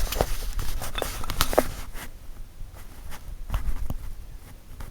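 Irregular light clicks and knocks of small hard parts being handled and fitted, several in the first two seconds and a few more later.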